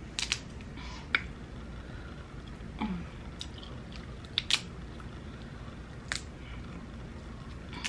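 Close-miked eating sounds: a handful of sharp clicks and cracks, a second or two apart, of Dungeness crab shell being broken and picked apart, with soft chewing between.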